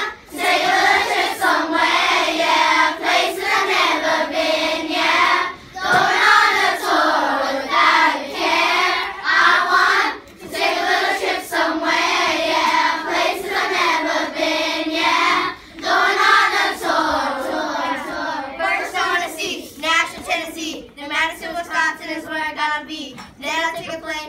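A group of children singing together in unison, in phrases with short breaks between them. The last few seconds turn choppier and more like speech.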